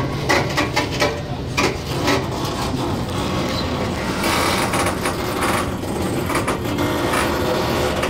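Gangway between two carriages of a Taiwan Railways local train in motion: the overlapping steel floor plates rattle and knock against each other over the running noise of the train, a very unpleasant racket. Sharp knocks crowd the first two seconds, and from about four seconds in the noise turns steadier and harsher.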